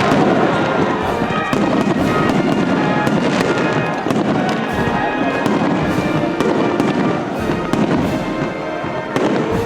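Aerial fireworks display: a rapid, continuous string of bangs and crackles, with music playing underneath.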